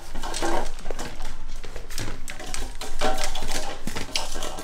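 Shiba Inu puppy eating dry kibble from a stainless steel bowl: quick, irregular clicks and rattles of kibble and teeth against the metal.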